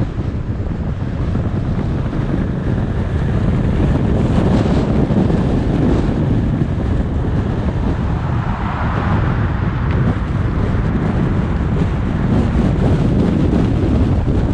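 Steady low rumble of a car being driven, with wind buffeting the action camera's microphone.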